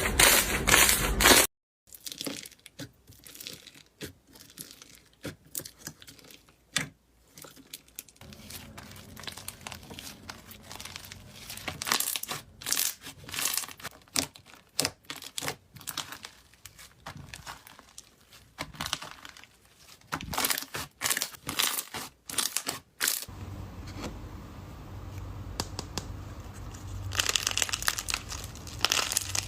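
Slime being squeezed and poked by hand, giving irregular crackling and popping, in several clips that change abruptly twice.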